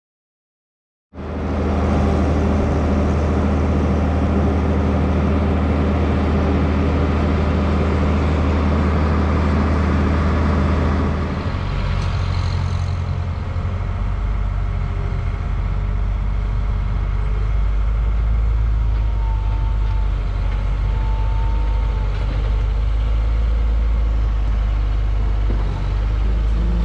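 Diesel engines running steadily at close range: a John Deere tractor idling while a New Holland skid steer loader works, loading feed into a wagon. The sound cuts in about a second in, and the engine note drops lower about a third of the way through.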